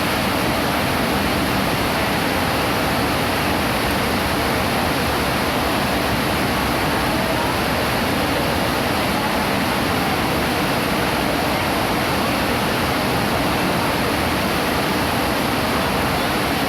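Heavy rain falling, a loud, even, unbroken hiss.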